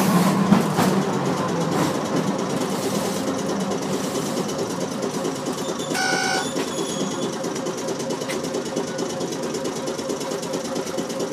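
Interior running sound of an old Tosaden streetcar with nose-suspended (tsurikake) traction motors: a steady motor drone and wheel noise from the rails, with a churning mechanical texture. A short bell-like ding sounds about six seconds in.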